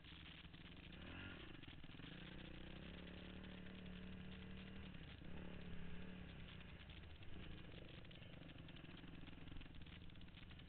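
Honda CRF450X dirt bike's single-cylinder four-stroke engine running under way, its revs rising and falling with the throttle several times.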